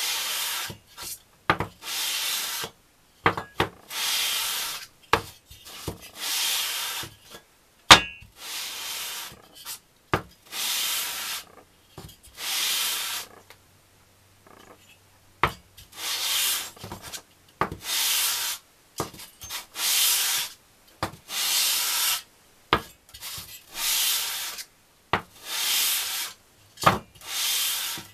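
Finned aluminium engine cylinder head being hand-lapped face-down on abrasive paper over a flat plate: repeated rasping rubbing strokes of about a second each, separated by short knocks, with one pause of about two seconds midway.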